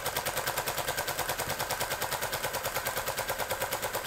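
3D-printed compressed-air piston engine running with its propeller, its exhaust puffing in a fast, very even beat of roughly ten a second. It is running on very low air pressure, too low to register on the gauge.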